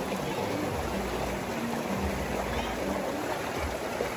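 Shallow river water rushing steadily over and between boulders, spilling through a small cascade.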